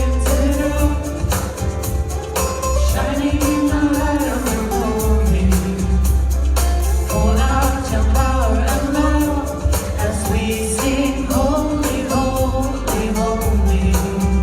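Gospel worship song: sung melody over a band with a steady bass line and a regular percussion beat.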